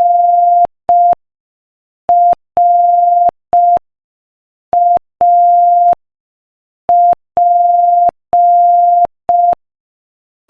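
Morse code practice tone sent slowly at 5 words per minute: a single steady beep keyed on and off in short dits and long dahs, with clear gaps between letters. The beeps spell out the letters R, A and P, after the tail end of a G.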